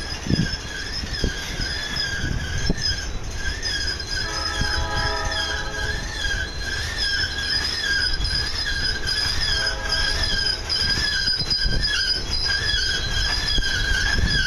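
Cars of a continuous welded rail train rolling past with wheel squeal: a high, wavering squeal with overtones runs throughout, joined by a second, lower squeal twice. Under it is a low rumble, with a few sharp clunks of wheels over rail joints in the first few seconds.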